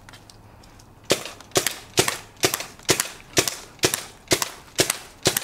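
Paintball gun firing about ten shots in steady succession, roughly two a second, starting about a second in. Each shot is a sharp pop with a short tail.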